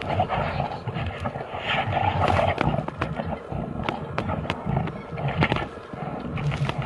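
Two brown bears growling and grunting in rough bursts as they wrestle, with sharp clicks and cracks scattered throughout.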